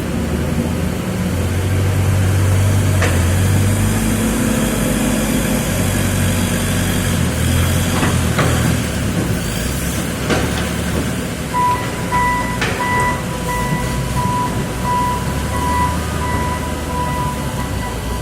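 Cardboard baling press running under test, its motor giving a steady low hum that rises and falls, with a few sharp knocks. About two-thirds of the way in, a high electronic beep starts repeating at about two beeps a second.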